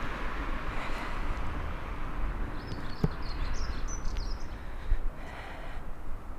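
Outdoor ambience with a steady low rumble on the microphone. A short run of high bird chirps comes about three seconds in, together with a single sharp click.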